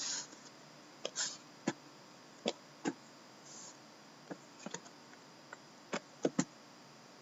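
Faint, scattered clicks and taps, about a dozen, with a couple of brief rustles, from objects being handled on a table.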